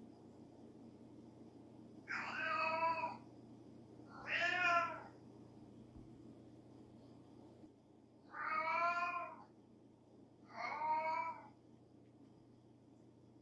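A tabby cat meowing four times, each call drawn out for about a second, in two pairs. She is calling out because her companion cat is not beside her.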